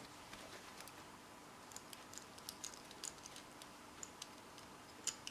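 Faint, irregular small clicks and ticks from a combination padlock's parts being handled, most of them in the second half.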